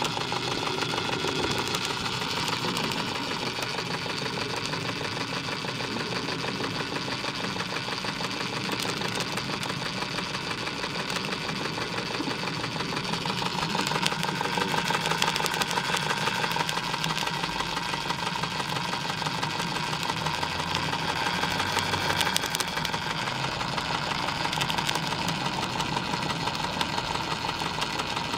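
Märklin 4122/11 live steam engine running steadily at speed, a rapid, even mechanical beat that gets a little louder about halfway through.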